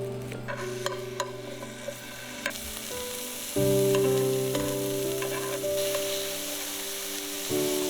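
Food sizzling in a hot pan, with a few clicks of a utensil stirring early on, over soft background music.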